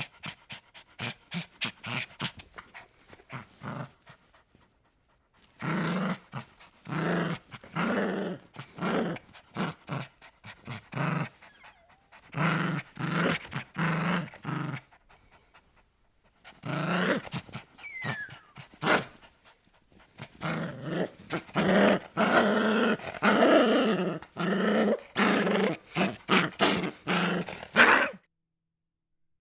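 Dog growling in several bouts of quick, repeated pulses, with short pauses between the bouts.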